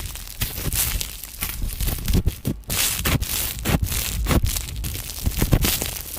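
Slime being pressed and squished by hands, giving dense, irregular crackles and pops.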